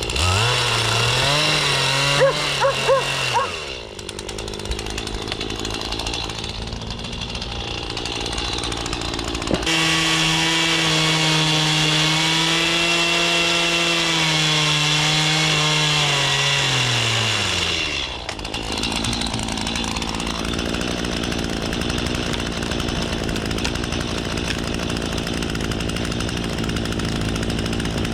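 Two-stroke petrol chainsaw carving into a Scots pine log. It revs up for about three seconds, drops back, then revs again for about eight seconds before winding down to a steady idle.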